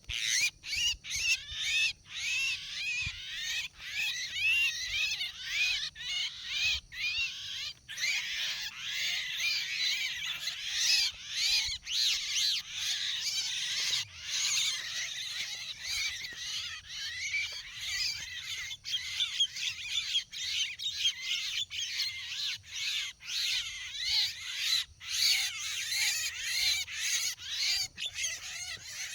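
Dense chorus of Javan myna calls: many overlapping harsh chattering and squawking calls that go on without a break.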